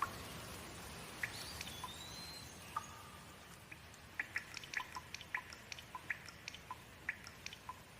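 Steady rain with close water drops dripping and pattering, the drips coming thick and fast from about halfway through. A short whistled bird call about two seconds in.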